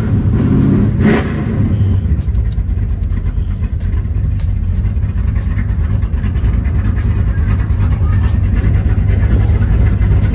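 Car engine running with a loud, steady deep rumble, with a brief swell in engine sound in the first second or so before it settles.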